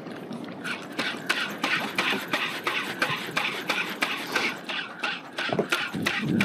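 Spinning reel cranked fast while the rod is jigged, with a quick run of knocks and clicks, several a second.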